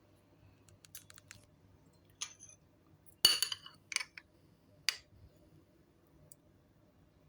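Kitchenware clinking: a few light clicks, then a sharp ringing clink of utensil on dish about three seconds in, followed by two more clinks.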